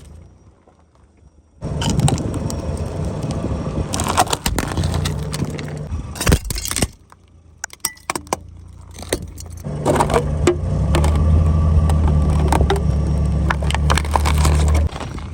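Car tyres rolling over and crushing crunchy objects: clusters of sharp cracks and crunches over the car's low, steady engine hum. The sound starts and stops abruptly several times.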